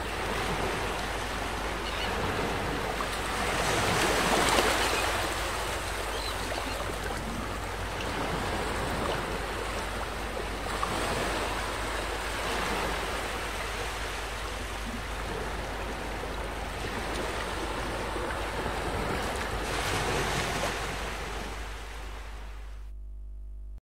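Small waves breaking and washing up a sandy beach, a steady surf that swells louder every several seconds. It fades and cuts off near the end.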